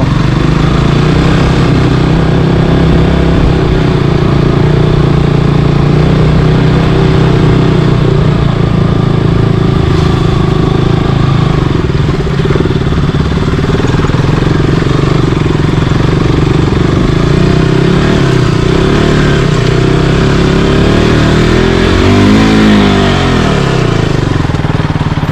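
Motorcycle engine running hard under load on a steep, slippery dirt climb, with the pitch rising and falling a few times near the end as the throttle is worked.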